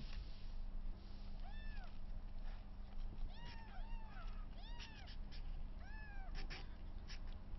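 Young kittens, about three weeks old, mewing: a run of short, high calls that each rise and fall in pitch, starting about one and a half seconds in. There are a few faint clicks and a low steady hum underneath.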